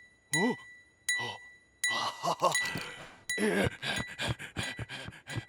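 Cartoon sound effects: a few bright dings that ring on as a high tone, alternating with short wordless vocal sounds that slide up and down in pitch. From about two seconds in comes a busier jumble of clattering effects and brief cartoon vocalizations.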